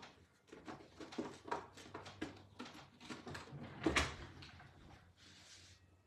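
Someone rummaging through craft supplies: a run of small clicks and knocks as things are handled and moved. There is a louder knock about four seconds in and a short rustling hiss near the end.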